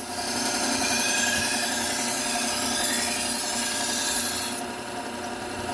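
Steel knife edge ground on a Trizact A30 (about 600 grit) belt of a low-speed belt sander: a steady abrasive hiss over the sander's motor hum, stopping about four and a half seconds in while the motor runs on. This is the refining stage, smoothing the bevels after the coarse 120-grit belt.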